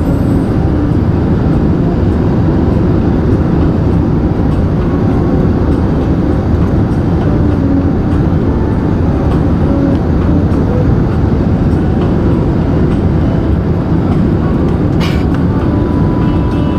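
Steady low rumble of cabin noise inside an Airbus A380 during its landing, with a single sharp click near the end.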